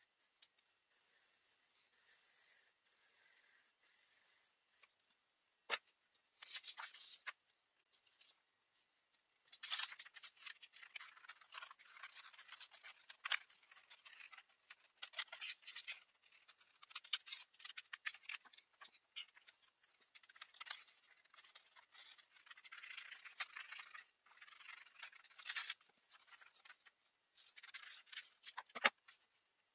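Scissors snipping through a sheet of paper in repeated short runs of crisp snips and paper rustle, starting about six seconds in.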